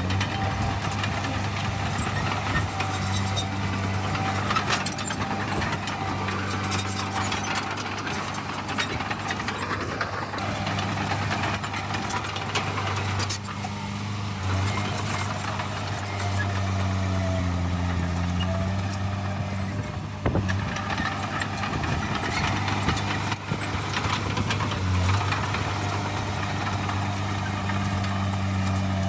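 Heavy earthmoving machinery's diesel engine running steadily with a low drone, with scattered metallic clanks and knocks over it.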